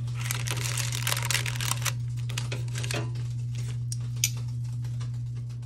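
Spatula scraping under broccoli fritters on a parchment liner in an air fryer basket as they are turned, the paper crinkling and rustling. The rustling is densest in the first two seconds, followed by a few light clicks. A steady low hum runs underneath.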